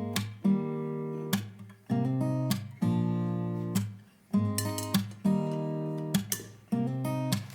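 Background music: an acoustic guitar strumming chords, each strum ringing out and fading before the next, about one or two strums a second.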